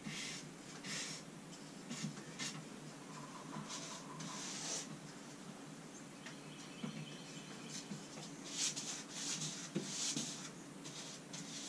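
Soft swishing strokes of a Purdy paintbrush being dragged across a painted wall, coming irregularly and more closely together about three-quarters of the way in.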